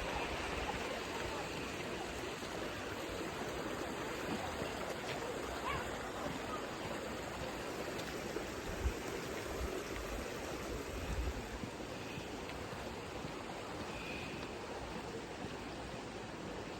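Waterfall rushing steadily, with a few low thumps around the middle.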